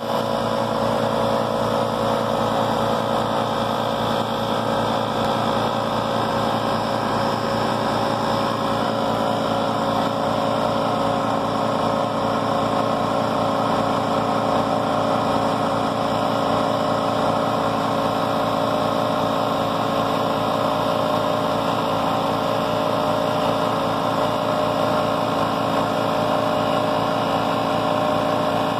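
A Champion 4000-watt portable generator's engine running steadily with an even low pulsing, powering a Ridgid air compressor plugged into it.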